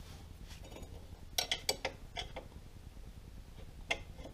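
Allen wrench clinking against the steel caliper mount bolts on an ATV's rear brake, a few sharp metallic clicks in quick succession about a second and a half in, a couple more just after, and one more near the end.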